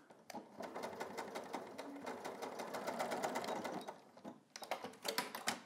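Sewing machine stitching at a fast, steady rate for about four seconds, then a few short bursts of stitches near the end. The box pleat in the back piece is being stitched in place.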